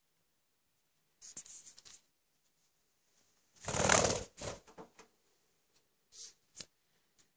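A few short, soft rustles and scuffs, the loudest and longest about four seconds in.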